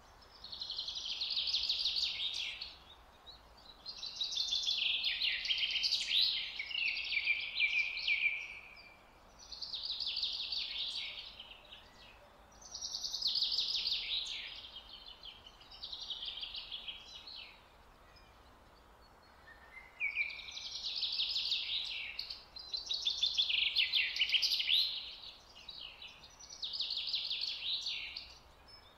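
A songbird singing: about eight high-pitched, rapidly pulsed trilling phrases of a few seconds each, with short pauses between them, over a faint steady background hiss.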